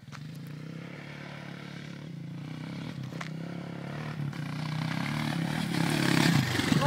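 Small dirt bike engine running at a steady speed, growing louder as the bike rides closer, with a few brief clicks along the way.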